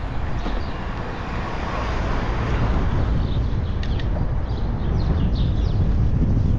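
Wind rumbling on a GoPro Hero 11's microphone during a bike ride, with birds chirping throughout. A rushing swell about two seconds in and a sharp click near four seconds.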